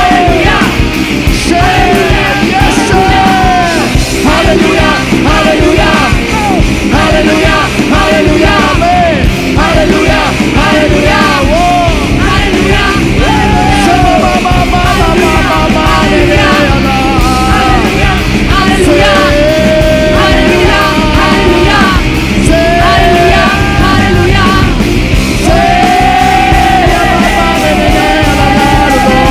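Live worship band playing loud rock music with a full, driving low end and a bending, sliding melody line on top.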